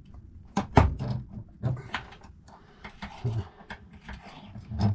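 Hand file rasping on a key held in a vise, in short irregular strokes with knocks and clicks between them, as the freshly cut key is cleaned up.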